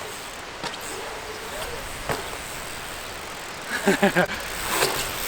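Steady wind noise on the microphone, with a couple of sharp clicks and a short vocal exclamation about four seconds in.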